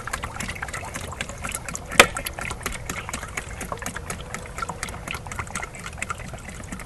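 Used transmission fluid trickling and dribbling through a paint strainer bag into a tank, with one sharp knock about two seconds in.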